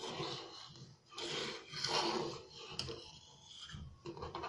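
Steel spoon stirring milk and rice for kheer in a steel pot, scraping along the pot in a few rubbing strokes, with a light clink near the middle.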